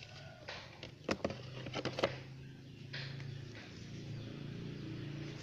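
Pink hard-plastic storage box lid being lifted off and handled: a cluster of sharp plastic clicks and knocks about a second in. A steady low hum comes in about three seconds in.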